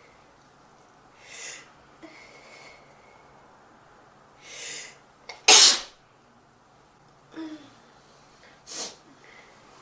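A person sneezing: two short breathy intakes build up to one loud, sharp sneeze about five and a half seconds in, followed by two shorter breathy bursts.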